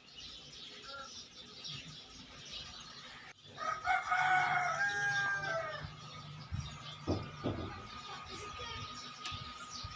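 A rooster crowing once, about four seconds in, for about two seconds.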